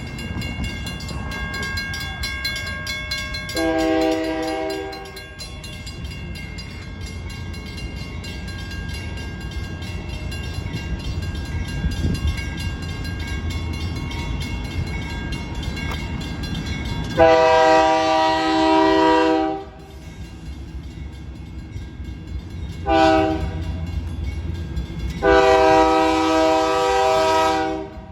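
Union Pacific diesel locomotive's air horn sounding four chord blasts over the steady rumble of the passing train. The blasts go long, long, short, long: the standard grade-crossing signal. The second and last blasts are the loudest.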